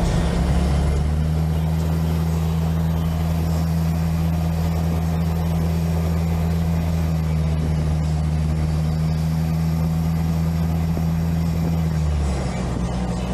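Land Rover Discovery engine droning steadily while driving, heard inside the cabin with road noise; the engine note drops about a second before the end.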